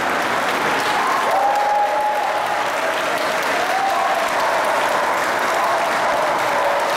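Crowd of spectators applauding steadily, continuous clapping without a break.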